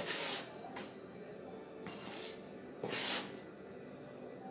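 Gritty succulent potting mix scooped by hand and trickled into a terracotta pot, in three short hissing pours near the start, about two seconds in and about three seconds in.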